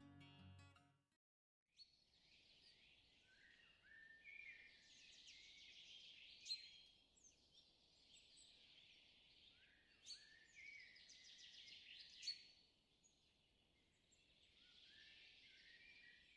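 Faint birdsong: several birds chirping and twittering, with short falling calls and a few sharper notes, after a short tail of music fades out about a second in.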